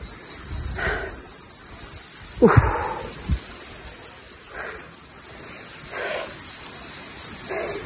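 A shrill, fast-pulsing insect chorus dominates. Beneath it a man breathes hard in short puffs, with a falling groan about two and a half seconds in.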